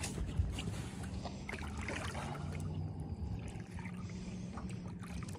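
Water trickling and sloshing as a large flathead catfish is lowered into the lake and held at the surface beside the boat, with a few small splashes in the first half second. A steady low hum runs underneath.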